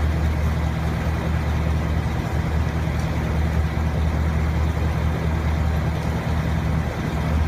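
A large vehicle's engine running steadily with a low, even drone, over a wash of outdoor noise.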